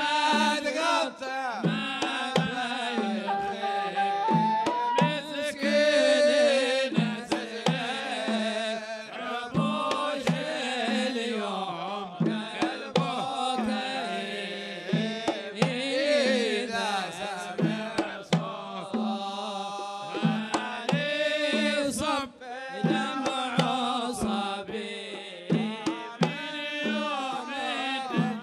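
Hadhrami zarbadi song: male voices singing a drawn-out melody over a steady beat of hand drums.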